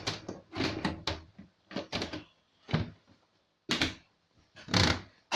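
PC case side panel being fitted and closed: a series of about six short knocks, scrapes and clunks, roughly one a second.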